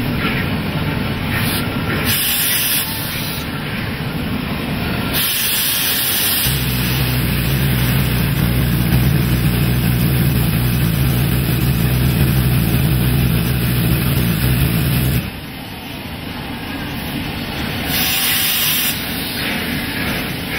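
Cab sound of steam locomotive 3265, a NSW 32 class 4-6-0, moving slowly: a steady rumble with hissing steam. Brief louder bursts of hiss come about two seconds in, about five seconds in and near the end. In the middle a low drone runs for several seconds, then stops suddenly.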